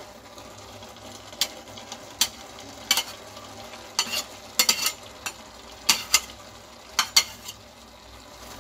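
A long steel spatula scraping solid ghee out of a bowl and knocking against the bowl and an aluminium pressure cooker, giving about nine sharp clicks at irregular intervals. Underneath, grated carrots cooking in the open cooker give a steady faint sizzle.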